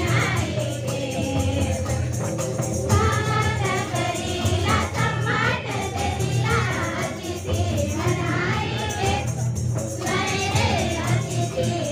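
A group of girls singing a song together in chorus, one voice amplified through a microphone, in long phrases with short breaks about three seconds in and near the end.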